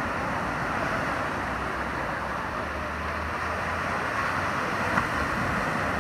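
Small ocean waves breaking and washing up the sand at the shoreline: a steady rushing noise, with one brief tick about five seconds in.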